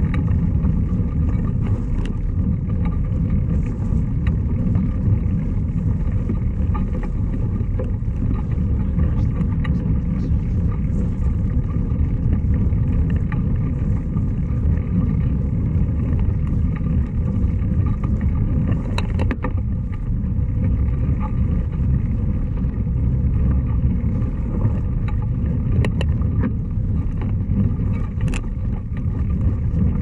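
Steady low rumble of a mountain bike being ridden along a dirt trail, with wind on the microphone and tyre noise, and a few faint clicks.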